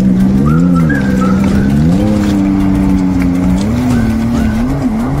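A watercraft engine running hard, its pitch rising and falling with the throttle, over background music.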